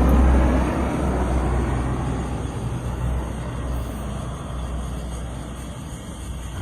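Military jet aircraft roaring, fading steadily as it moves away.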